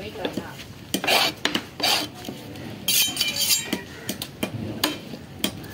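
A heavy fish-cutting knife striking a wooden log chopping block, with loud chops about a second in and just before two seconds. Around three seconds there is a clatter of metal with a brief ringing.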